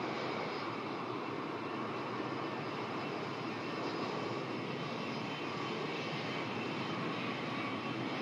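Aircraft engines running loud and steady during a takeoff: an even rush of engine noise with a faint high whine over it.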